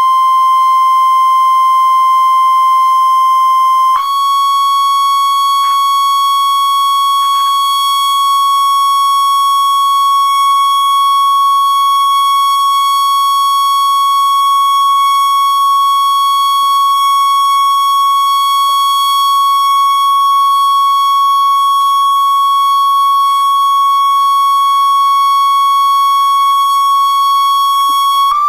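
Steady high sine-wave test tone of about 1 kHz, used to set a cymatics plate resonating. It shifts up a little in pitch about four seconds in and again near the end.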